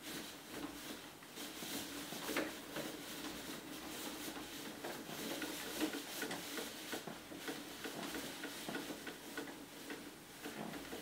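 1967 Tube Stock destination blind winding on its rollers, its mechanism giving a continuous run of small ticks and clicks.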